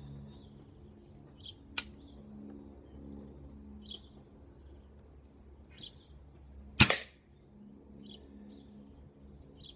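A tuned Weihrauch HW99S .22 spring-piston air rifle, fitted with a TbT drop-in tuning kit and an MWSS moderator, fires a single shot about seven seconds in: one sharp report with a short tail. A small sharp click comes about two seconds in, and birds chirp faintly throughout.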